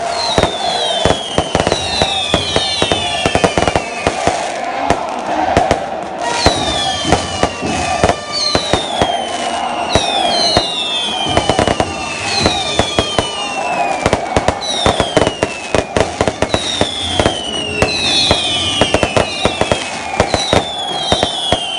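Fireworks going off in a rapid string of cracks and bangs, with whistles that fall in pitch every couple of seconds, often two or three at once.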